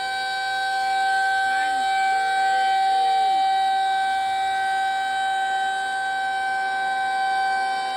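Federal Signal 2001 electromechanical tornado siren heard from directly beneath, loud and holding one steady pitch at full speed, its level swelling gently.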